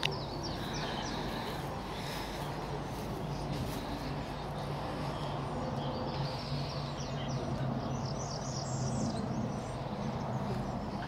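Outdoor ambience with small birds chirping in quick runs of short high notes, twice, over a steady low hum.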